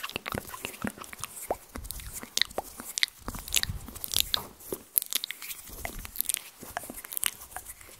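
Close-miked ASMR mouth and hand sounds: a dense, irregular run of wet clicks and crackles right at the microphone, with no words.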